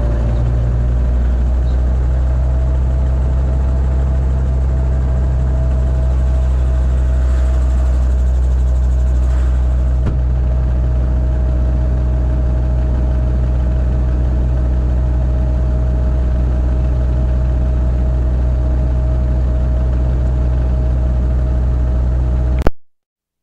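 Robinson R22 helicopter's engine and rotor drive running during start-up, a steady loud drone picked up through the headset intercom, with a tone that rises slightly at the start as the drive speeds up. The sound cuts off suddenly near the end.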